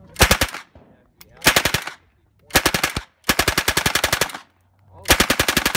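PPS-43 submachine gun in 7.62×25mm Tokarev firing full-auto in five short bursts, about ten shots a second; the fourth and fifth bursts are the longest, the last still going at the end.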